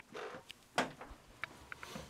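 A few light clicks and knocks of handling, with a soft rustle near the start and the loudest knock just under a second in.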